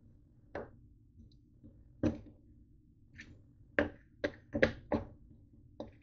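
A black spoon knocking and scraping against a dark bowl while stirring a thick mix of broken cookies, mini donuts and whipped cream: about eight short knocks at uneven spacing, most of them bunched together in the second half.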